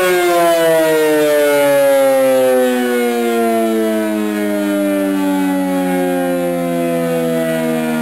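Federal Signal 500-DH-TT rotating dual-horn siren winding down. Its steady wail has been cut, and the pitch falls slowly and steadily as the rotor coasts down.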